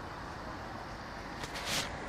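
Street background noise with a steady traffic hum, and a short hiss near the end.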